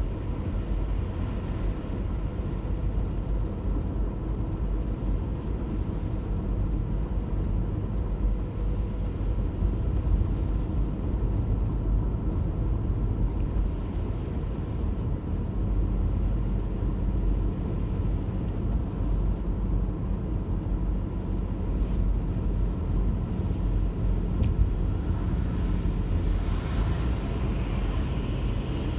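A car driving on snowy roads: a steady low rumble of engine and road noise, with a brief rise in hiss near the end.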